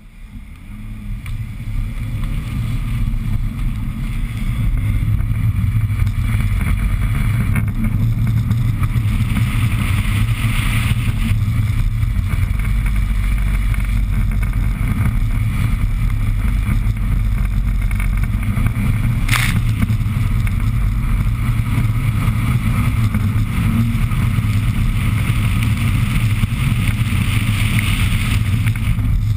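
BMW 325i E36's 2.5-litre straight-six engine running hard under throttle while the car is drifted, heard muffled from a camera mounted outside the car. It builds up over the first few seconds, then holds steady, with a single sharp click about two-thirds of the way through.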